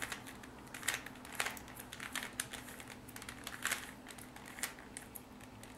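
Plastic Rubik's Cube layers being turned by hand: a string of irregular clicks and rattles as the last corners are twisted into place.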